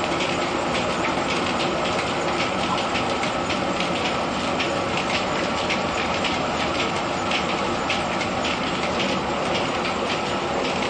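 Threshing machine in a grain mill running steadily, a dense mechanical rumble with a fast, uneven rattling clatter over it as grain is threshed.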